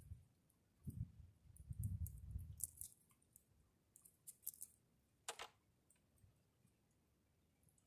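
A Virginia opossum moving about on a wooden feeding table scattered with popcorn, heard faintly: a few soft low thumps early on, then scattered light clicks and crackles, with one slightly longer crackle about five seconds in.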